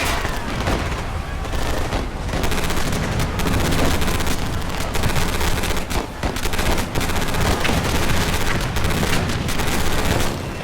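A dense, continuous run of sharp cracks and bangs over a heavy low rumble, in the manner of a gunfire ambience.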